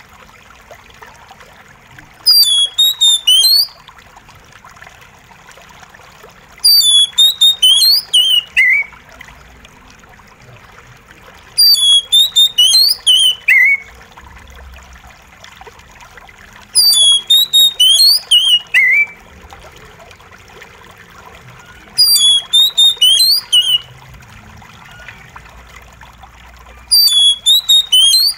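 Oriental magpie-robin singing short phrases of rapid, high whistled notes, each ending in a falling note, repeated about every five seconds. A soft steady trickle of running water fills the gaps between phrases.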